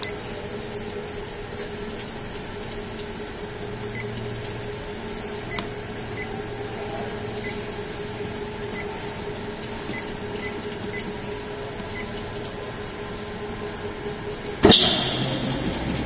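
Yamada Dobby A-30H 30-ton high-speed stamping press: its motor and flywheel run with a steady hum while control-panel keys give a string of short beeps. Near the end comes a sudden loud clunk with a short hiss as the press starts stroking, followed by the steady low rumble of the press running at about 266 strokes a minute.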